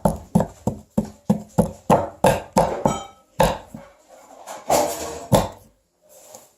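A digging tool chipping at a plaster dig block, in quick sharp strikes about three a second, then a few longer scrapes after about three seconds.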